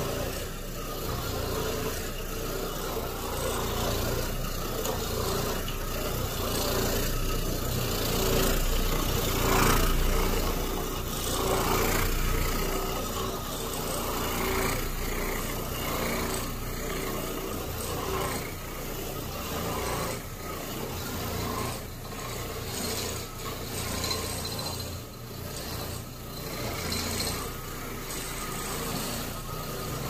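Orbital floor machine running, its pad scrubbing across carpet: a continuous rasping rub over a steady motor hum.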